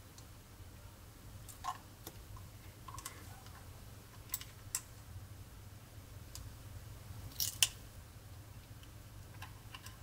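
Metal tweezers clicking and scraping against the plastic underside of a Roccat Kone Aimo Remastered mouse while prying off its Teflon feet: a handful of faint, scattered clicks, the loudest a close pair about seven and a half seconds in.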